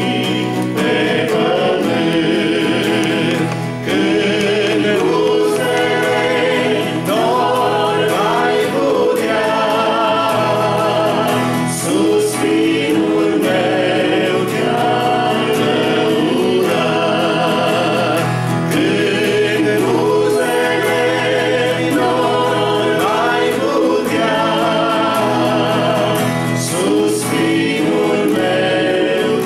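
A small group of men's and women's voices singing a Romanian hymn together, accompanied by a strummed acoustic guitar.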